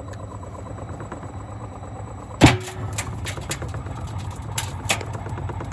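Gorenje SensoCare washing machine running with heavy bricks in the drum: a steady low hum from the turning drum, one loud bang about two and a half seconds in, then several lighter knocks as the bricks are thrown against the drum.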